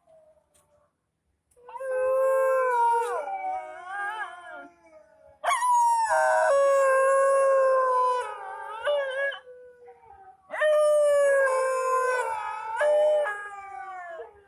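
A dog howling: three long howls of several seconds each, wavering in pitch, with short gaps between them.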